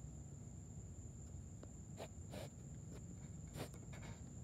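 Faint outdoor night ambience: a steady, high-pitched insect trill, with a few short clicks about two seconds in and near the end.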